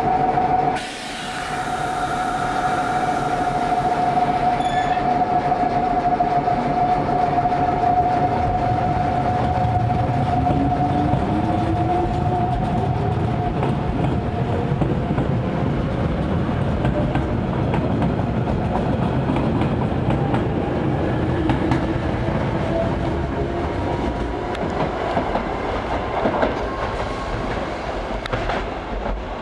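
Nose Electric Railway 3100 series electric train pulling out of the station: a steady high hum for the first half, then a whine that rises in pitch as the train gathers speed, over the continuous rumble of the running train.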